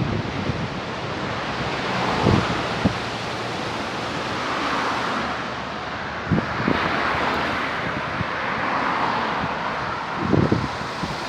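Wind buffeting the microphone in gusts over a steady wash of ocean surf that swells and fades.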